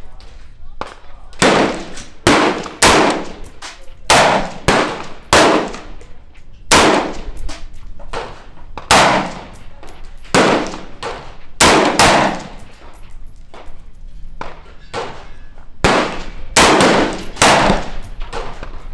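AR-15-style rifles firing at a shooting bench: about fifteen sharp shots at an uneven pace, some in quick pairs a half second apart, each with a short ringing echo, with a pause of a few seconds past the middle.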